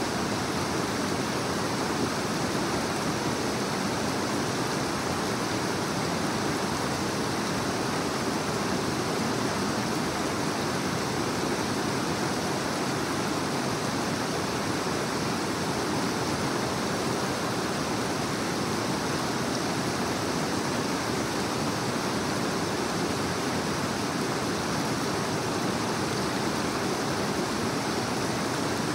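Creek water rushing over rocks: a steady, even wash of running water.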